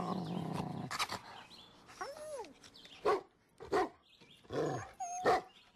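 Dogs vocalizing: a low growl at the start and an arching whine about two seconds in, then four short barks in quick succession.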